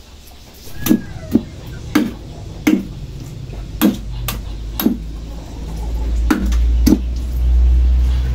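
Heavy kitchen knife chopping through pork hock on a chopping board: about eight hard, irregularly spaced strikes. A low rumble rises in the second half.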